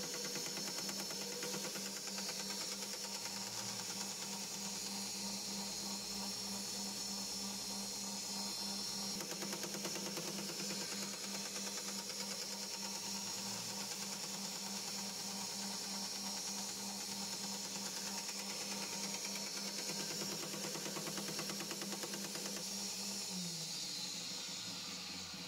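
Electric motor of a workshop power tool running steadily with a pulsing hum and a high whine, then switched off and winding down, its pitch dropping, about two seconds before the end.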